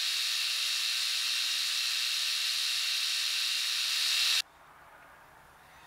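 Milling machine running with an end mill taking a very light cleanup cut, only a couple of thousandths, along the edge of a cast part. It makes a steady hiss with a few steady hum tones under it, and cuts off suddenly a little over four seconds in.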